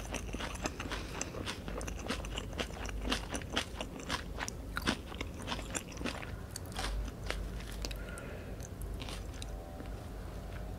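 Close-miked chewing of a Vietnamese fresh spring roll in rice paper, with crisp crunches and wet mouth clicks. The chewing is dense for the first six or seven seconds, then thins out.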